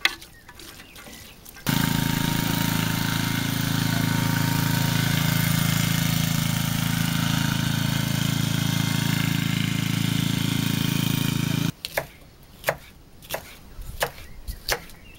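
Engine of a two-wheel walking tractor pulling a trailer, running steadily at an even pitch for about ten seconds, cutting in and out abruptly. Near the end, a knife chopping a pepper on a wooden cutting board, a series of sharp taps.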